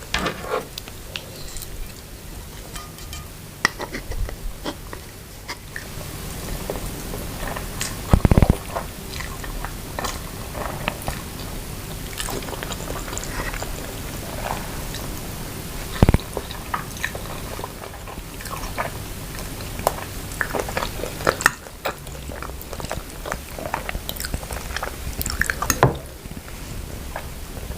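Close-miked chewing and biting of instant noodles and grilled chicken pieces: a steady run of irregular wet clicks and crunches, with a louder thump about eight seconds in and another about sixteen seconds in.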